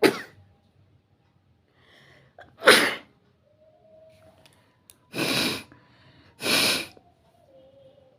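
A person sneezing repeatedly: a sharp sneeze right at the start, another after a short breath in, then two longer, noisier blasts a little over a second apart.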